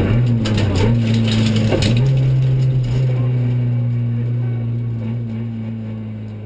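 Renault Clio Sport rally car's four-cylinder engine heard from inside the cabin, running at a steady, moderate pitch. A few short rattles come in the first two seconds, and the sound fades out near the end.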